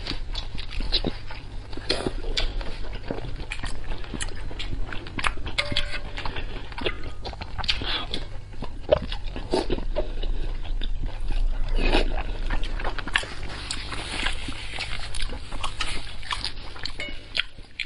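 Close-miked eating sounds: wet slurping, sucking and chewing as a long oily strip of food is drawn into the mouth, with many sharp lip smacks and clicks.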